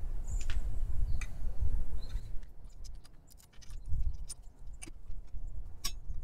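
Small metallic clicks and clinks as metal parts are set into the jaws of a steel bench vise and handled with pliers, most frequent in the second half, with one sharper click near the end. Underneath is a low, uneven rumble of wind on the microphone.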